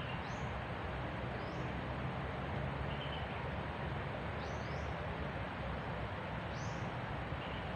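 Forest ambience: a steady hiss with short, high, rising bird chirps every one to two seconds, several of them in quick pairs.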